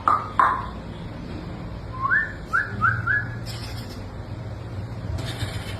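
Short whistle-like chirps: two falling ones at the start, then four quick rising ones about two seconds in, followed by two brief hisses.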